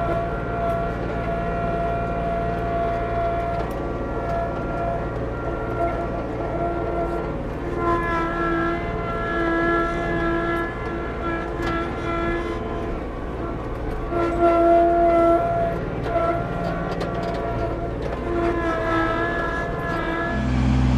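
Kubota LX2610 compact tractor's three-cylinder diesel engine running under way as heard from inside its cab, with a whine from the hydrostatic drive that comes and goes and shifts in pitch as the tractor travels. Scattered light ticks sound over it.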